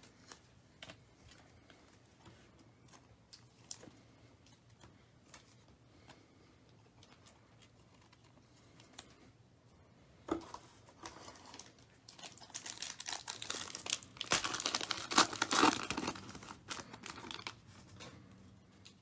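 Faint scattered clicks of trading cards being handled and set down on a table, then a 2020-21 Panini Prizm basketball hobby pack's foil wrapper crinkling and tearing open, loudest about two-thirds of the way through.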